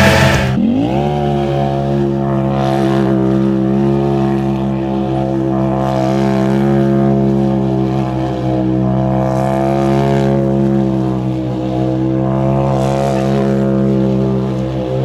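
Polaris RZR side-by-side's engine running hard, its pitch rising quickly about half a second in and then holding nearly steady, with a few short rushes of hiss over it.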